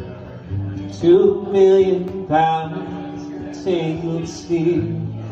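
Acoustic guitar strumming with a man singing long held notes over it.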